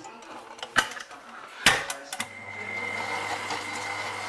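Electric tilt-head stand mixer: two knocks as the steel bowl and mixer head are set in place, then the motor starts about two seconds in and runs with a steady hum, beating icing.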